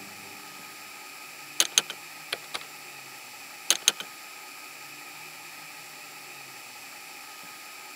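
Steady hiss with a faint low hum and a few sharp clicks, two pairs about two seconds apart plus a couple of softer ones between them.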